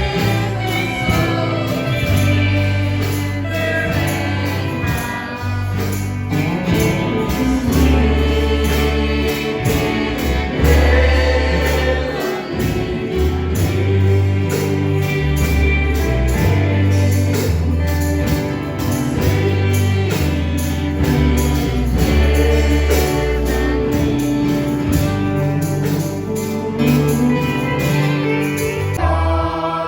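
Gospel choir singing with band accompaniment: a bass line that moves every second or so under a steady beat.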